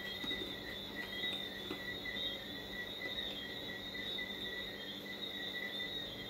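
Crickets chirping steadily in the background, a fast, even trill, over a steady low hum.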